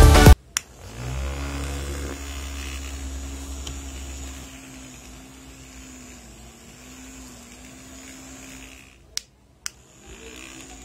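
Small DC hobby motor spinning a plastic fan blade, powered by a 9 V battery, running with a steady hum that wavers slightly. A switch clicks as it starts. Near the end it stops briefly with two sharp clicks and then starts running again.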